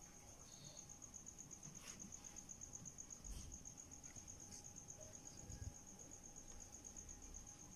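Near silence: faint room tone with a steady, high-pitched pulsing trill and a couple of soft low bumps.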